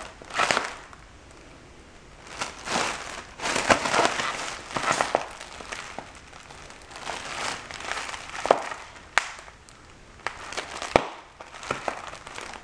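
Thin plastic packaging crinkling and crackling in irregular bursts as a capuchin monkey chews and pulls at an air-cushion bag, with a few sharp clicks in the second half.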